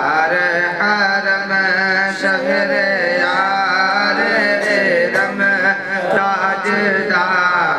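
A boy singing a devotional salaam unaccompanied into a microphone. His amplified voice is chanted in long, wavering melodic lines without a break.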